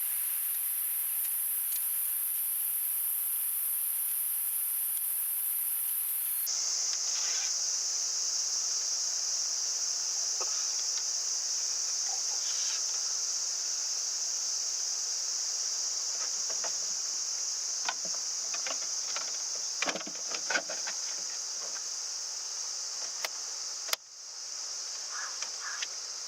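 Insects calling: a steady, very high-pitched drone that changes pitch abruptly twice, with scattered faint clicks and taps over it.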